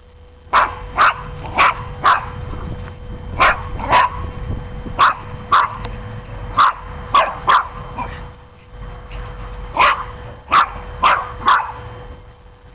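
Dog barking in play, in short sharp barks that come in runs of two to four, about two a second, with pauses between the runs.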